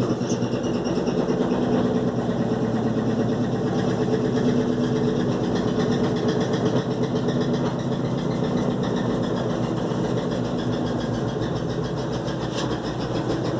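Electrolux LTE12 top-loading washing machine winding down at the end of its spin cycle: a steady mechanical hum whose tone fades in the second half as the drum slows.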